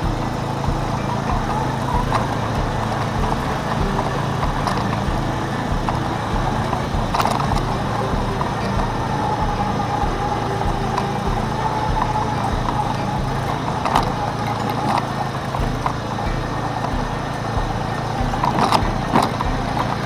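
A vehicle engine running steadily, with scattered sharp knocks and clatter over it.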